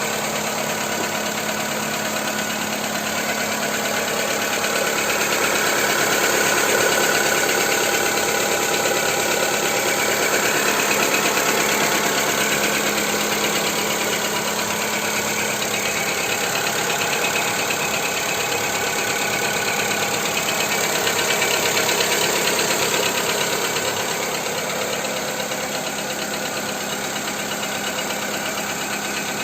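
Skoda Fabia II's 1.4 engine running steadily with a rapid knocking tick. The knock is still there after a Ceratec additive treatment.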